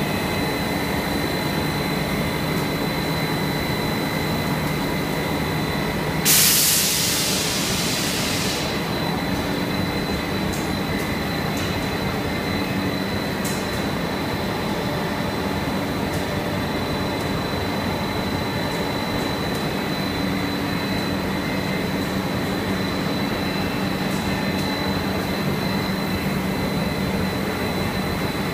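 PET sheet extrusion line running: a steady factory drone of motors and rollers with a thin, high whine over it. About six seconds in, a loud hiss lasts around two seconds.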